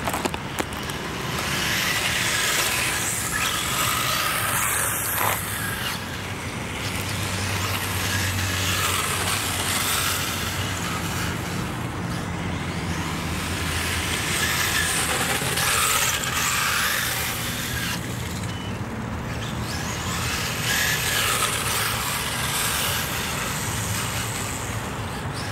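Remote-control cars running, their motor and tyre noise swelling and fading several times as they pass, over a steady low hum.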